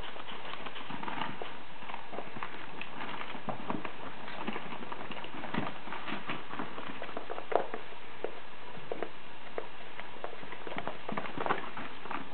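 Danish-Swedish farmdog puppies scrambling over newspapers spread on carpet: irregular rustling and crinkling of paper with the patter of small paws, and a few sharper clicks.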